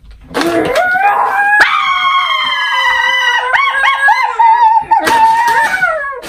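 Dog howling: one long howl that wavers in pitch partway through and slides down at the end.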